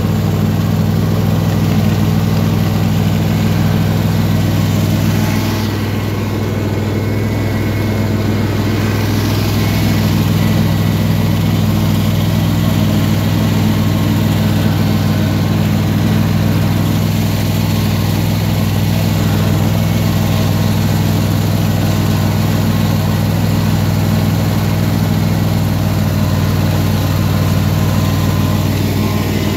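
Simplicity lawn tractor engine running at a steady speed as the tractor drives slowly over snowy, muddy ground towing a trailer loaded with wood.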